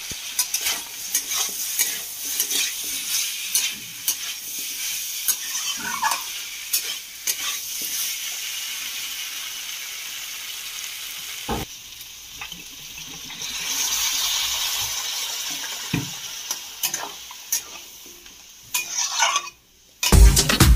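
A flat metal spatula stirs and scrapes through potatoes, peas and broad beans in a kadhai, with many sharp clicks of metal on the pan over a steady frying sizzle. The sizzle swells for a couple of seconds midway. Loud music cuts in abruptly right at the end.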